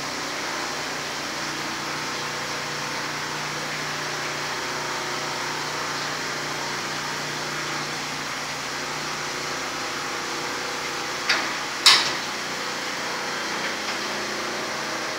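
Steady electric-motor hum of a carriage-type stone edge polishing machine, with two sharp metallic knocks about eleven and twelve seconds in.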